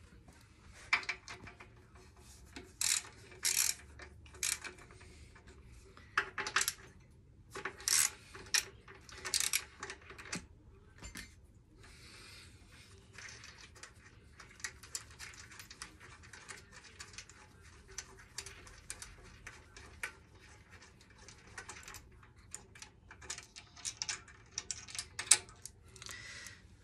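Irregular metallic clicks, clinks and scrapes of hand tools on the bolts of a motorcycle's rear shock absorber mounts as the shock is unbolted. They come in bunches, with a quieter stretch in the middle and one sharp clink near the end.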